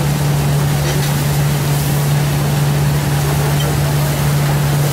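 Boat engine droning steadily with a constant low hum, under a steady rush of wind and water.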